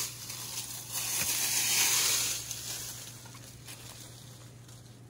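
Dry overgrowth rustling and scraping as ground is cleared: a long rustling stroke about a second in that dies away after about two and a half seconds.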